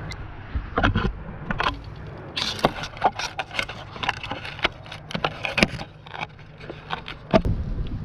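Wind rumbling on the microphone, with a run of short clicks, scrapes and rustles from handling gear or brush up close; the loudest knock comes near the end.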